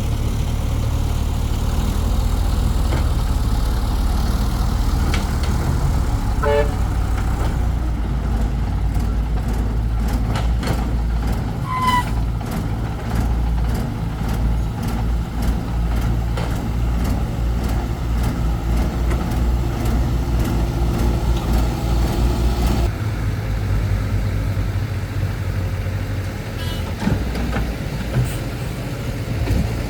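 Heavy diesel machinery engine running steadily, with a run of clattering knocks in the middle and two short beeps.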